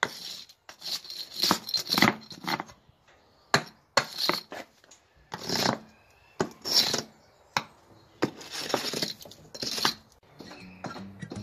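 Steel hammer head scraping and chipping old mortar out of the joints between concrete patio slabs: an irregular run of gritty scrapes and sharp knocks with short pauses between strokes.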